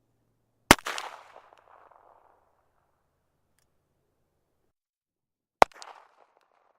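Two handgun gunshots about five seconds apart, each a sharp crack followed by a fading echo; the first echo rings on longer.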